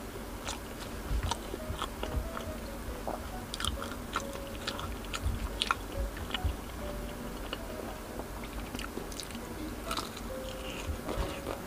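Close-miked eating of a skewer of grilled chicken skin: bites and chewing, heard as irregular crunchy clicks and mouth sounds.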